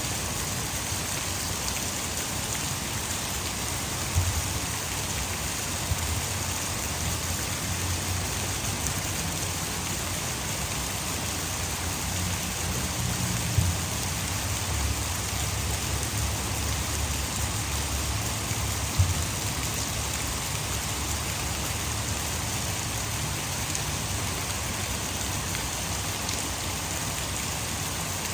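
Heavy rain falling steadily, blended with the constant rush of water spilling over a hydroelectric dam. A low rumble swells through the middle, and a few sharp single ticks stand out from the hiss.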